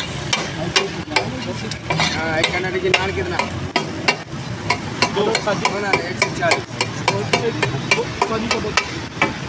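A metal spatula clinking and scraping on a large iron tawa, in quick irregular strokes, over the steady sizzle of eggs frying in oil on the griddle.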